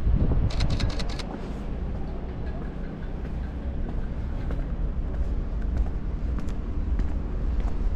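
Steady low outdoor rumble heard while walking along a street, with a quick run of about six sharp clicks about half a second in.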